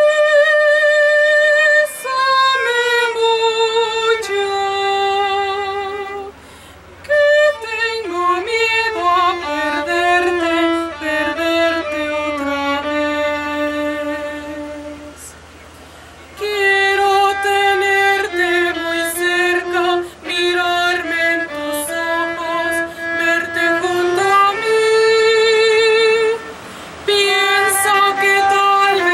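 A woman singing in a trained classical voice with wide vibrato, accompanied by a solo violin. There are short breaks between phrases.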